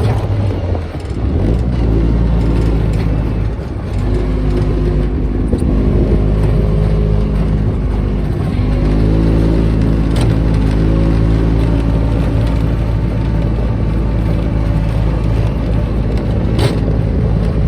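Small off-road buggy engine running while being driven, its pitch dipping and then rising again as the throttle changes, with a few knocks and rattles from the ride.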